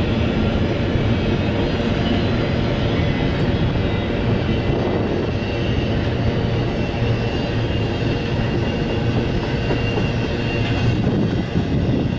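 Double-stack intermodal freight train's well cars rolling past, a steady rumble of steel wheels on the rails, with faint thin high-pitched squeals at times.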